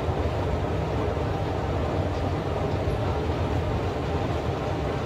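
Steady low mechanical rumble of a moving escalator, heard while riding it down.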